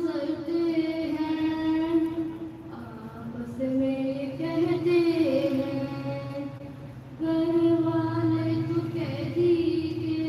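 A high solo voice chanting a melodic religious recitation, unaccompanied, in long held lines that bend slowly in pitch, with two short breaks for breath.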